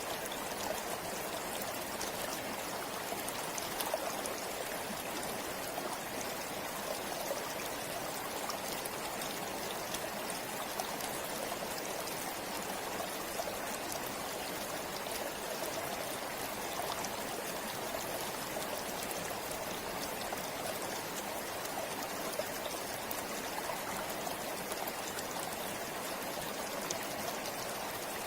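River water flowing in a steady, unbroken rush, with faint small splashes and drips over it.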